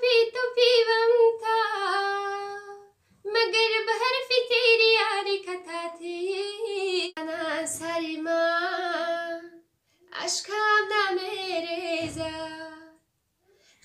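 A young woman singing solo without accompaniment, in three long drawn-out phrases with short breaths between.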